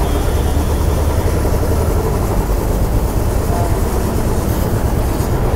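Royal Enfield Classic 350's single-cylinder engine idling steadily.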